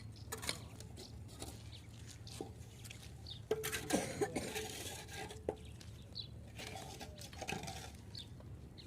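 Scattered clinks, taps and scrapes of hand work on a building site, with a brief cluster of louder knocks about three and a half to four seconds in.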